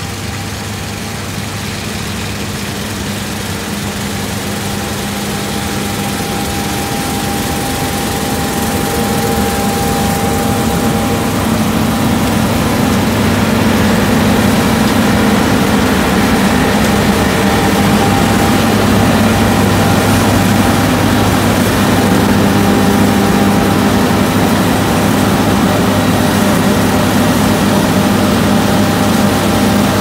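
John Deere S-series combine harvester running steadily while harvesting barley, a low engine drone with several held machine tones over it. It grows louder over the first dozen seconds as the combine comes closer, then holds steady.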